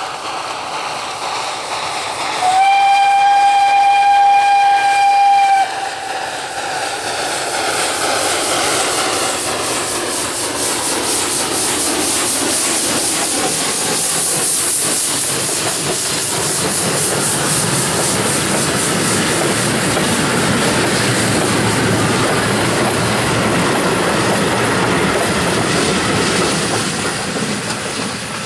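Ol12-7 steam locomotive sounds its whistle once, one steady note held for about three seconds. It then passes close by under steam with a rapid chuffing exhaust, followed by the rumble and clickety-clack of its coaches, fading near the end as the train moves away.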